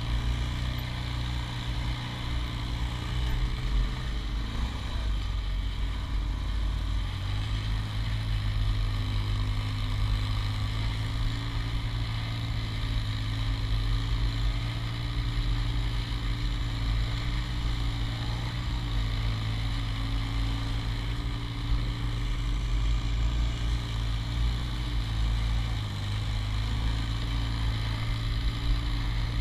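ATV engine running at low speed while riding a dirt trail, a steady low drone that shifts in pitch a couple of times as the throttle changes.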